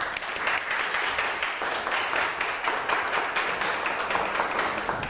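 A small audience applauding: many hands clapping in a dense, steady patter.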